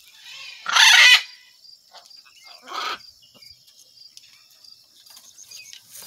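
A parrot giving a loud, harsh squawk about a second in, then a shorter, weaker squawk about two seconds later.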